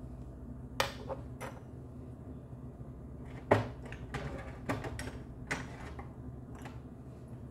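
Irregular clicks and knocks of kitchen items being handled, about nine in all, over a steady low hum. The sharpest knock comes about three and a half seconds in.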